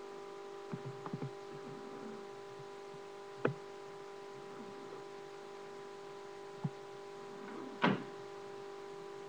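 A napping animal snoring softly: faint snuffling breaths and a few short snorts, the loudest just before the end, over a steady electrical hum.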